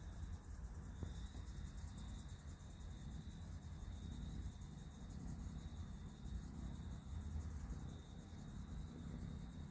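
A cricket trilling steadily at one high pitch, over a steady low rumble.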